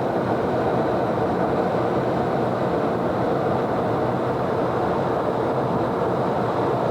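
Steady road and engine noise heard inside a moving car.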